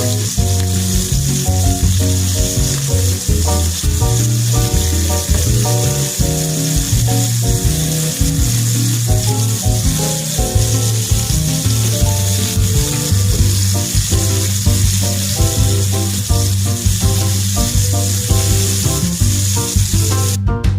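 Food sizzling in a hot frying pan, a steady hiss that cuts off suddenly near the end, heard under louder background music with a strong bass line.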